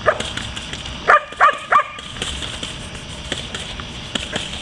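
A dog barking at a bite-training decoy: one bark right at the start, then three loud sharp barks in quick succession about a second in.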